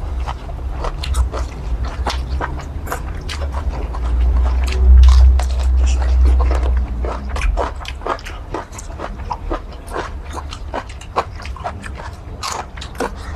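Close-miked mouth sounds of a person biting and chewing curry squid: a dense run of irregular wet smacks and clicks. A deep rumble swells about four seconds in and fades out a few seconds later.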